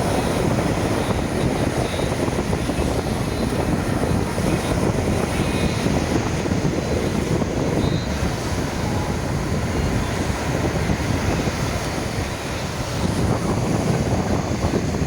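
Steady wind noise on the microphone over the rush of sea waves breaking at the shore.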